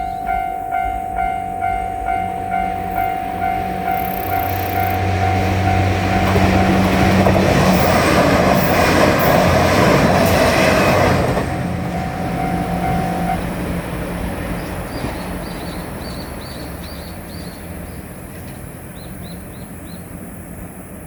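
Japanese level crossing warning bell ringing in a steady rhythm, about two strokes a second, as a JR Shikoku 2700 series diesel limited express approaches with its engine running, passes in a loud rush of wheels for about five seconds and cuts off sharply; the bell stops a couple of seconds later and the train fades away.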